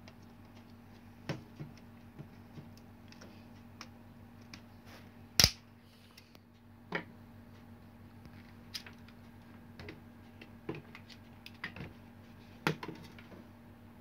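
Scattered clicks and light knocks of a Philips hair dryer's plastic housing being handled and prised open, with one sharp knock about five and a half seconds in. A faint steady hum lies beneath.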